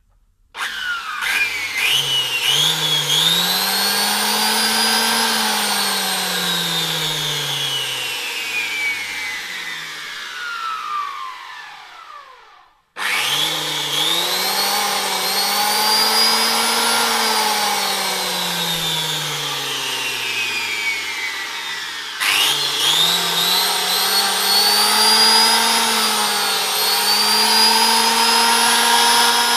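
Electric motor of a vintage Black & Decker DN750 power planer, with no blades fitted, running unloaded. It whines up to speed, then winds down slowly over several seconds, and does this twice. Then it runs up again and holds speed. It runs smoothly, with no rough running.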